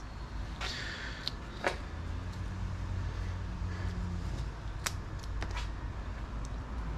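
Handling noise of gum rubber tubing being worked along a bowling-machine ball lift rod held in a bench vise: rubbing with a few sharp knocks, one just under a second in, another near two seconds, and two more past the middle.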